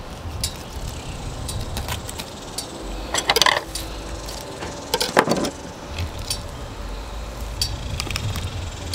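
Knife and hands working a flathead catfish carcass during gutting: scattered light clicks and clinks, with two louder noisy bursts about three and five seconds in, over a low steady rumble.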